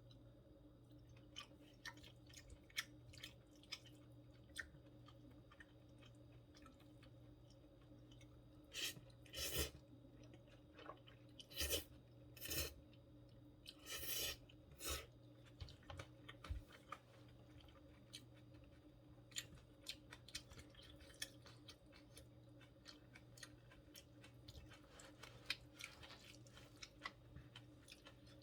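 Close-miked chewing of a person eating stir-fried gopchang with vegetables: soft, frequent mouth clicks, with a cluster of louder wet chewing bursts about a third to halfway through.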